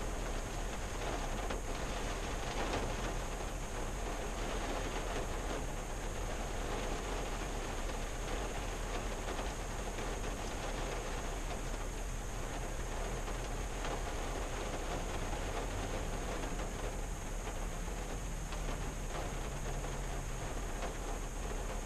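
Rain falling on a 1974 Valiant, heard from inside the car's cabin: a steady, even patter of many drops on the windshield and body.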